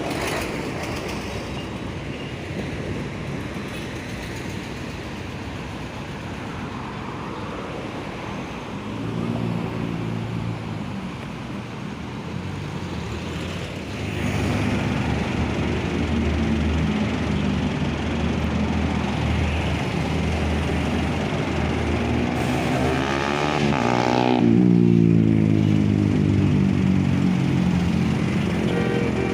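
Roadside traffic with heavy diesel vehicles, buses, running past. Their engine hum grows louder from about a third of the way in, and the loudest vehicle passes close about 25 seconds in.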